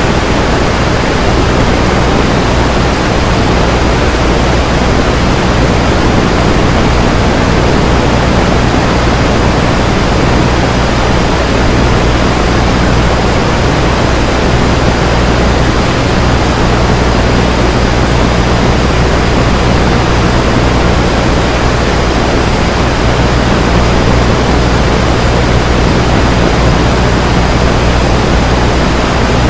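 Loud, steady static from a broken radio: an even hiss with a low hum beneath it and a faint high steady tone, unchanging throughout.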